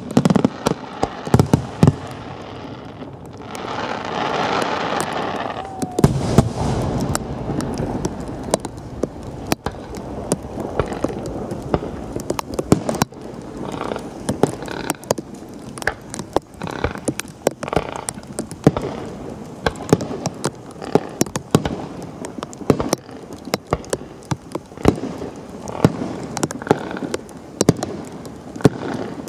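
Fireworks going off in a rapid, irregular string of sharp bangs and crackles, with a denser rushing swell about four seconds in.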